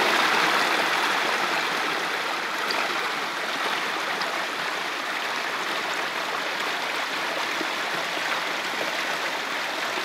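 Small forest stream running over rocks: a steady rush of flowing water.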